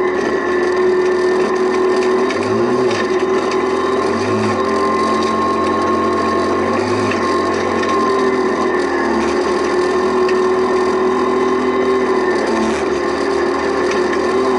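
Rally car engine running hard at high, fairly steady revs, heard from inside the cabin, its pitch wavering only slightly, with scattered clicks and rattles from the car on the gravel road.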